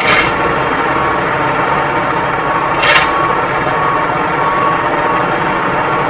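Steady engine rumble of a dump truck running beside the roadwork, with two short, sharp scrapes of a shovel on the wet road surface, one right at the start and another about three seconds in.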